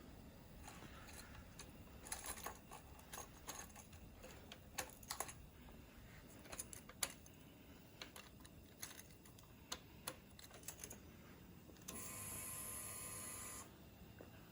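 Faint, scattered light clicks and rattles, then about twelve seconds in a steady electric whir lasting under two seconds, typical of the motorcycle's fuel pump priming when the ignition is switched on before the engine is started.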